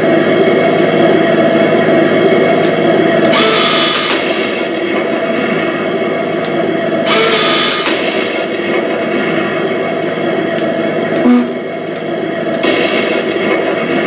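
Heng Long TK7.0 sound board in a 1/16 Leopard 2 A6 RC tank playing its simulated tank engine running sound through the model's small speaker. Three noisy bursts about a second long come at about 3, 7 and 13 seconds in, with a short blip just after 11 seconds.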